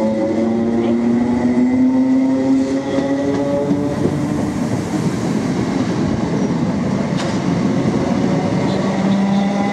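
Electric multiple unit pulling away from the platform at close range. Its traction motor whine rises steadily in pitch for the first few seconds. Then come the rumble and clatter of the carriages rolling past, with a steady hum returning near the end.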